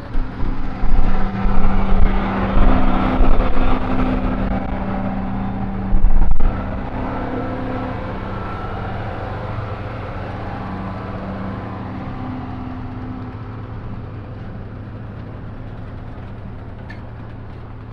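Tractor engine running steadily as it pulls a Vermeer 604N round baler, slowly growing fainter. Loud gusts of wind hit the microphone during the first six seconds or so.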